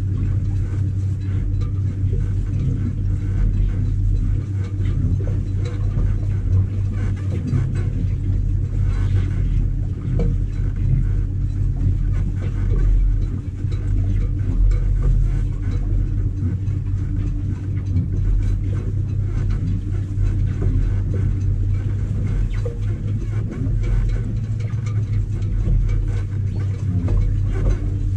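Electric boat motor running steadily at constant speed, a low, even hum with a rumble.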